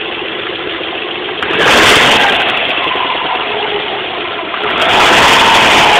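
Subaru flat-four boxer engine running and revved up twice, with rod knock from a spun connecting-rod bearing on cylinder 3. The owner also hears a second knock that he puts down to the piston hitting the head.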